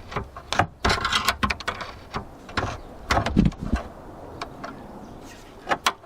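Irregular clicks and knocks of a Land Rover Discovery 2 rear door's lock linkage being worked by hand, as a lever rod is unclipped from the inside door handle, with a heavier knock about halfway through.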